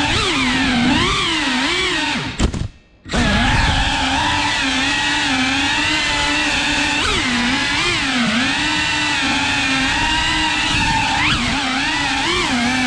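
Cinewhoop FPV drone's motors and ducted propellers whining, the pitch rising and falling with the throttle. About two and a half seconds in the sound cuts out sharply for about half a second, then comes back.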